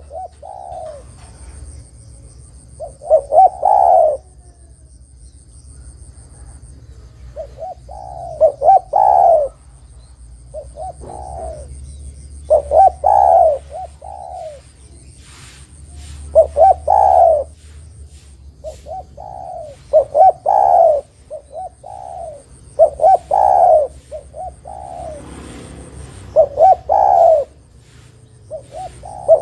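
Spotted dove cooing: a loud phrase of several short coos repeated every three to four seconds.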